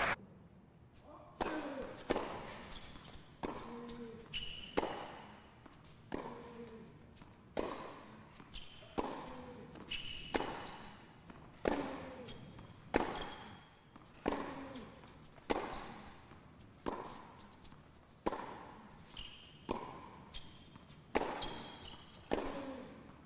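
Tennis baseline rally on a hard court: sharp racket strikes on the ball about every second and a bit, each with a little ringing in the hall, with short shoe squeaks on the court between shots.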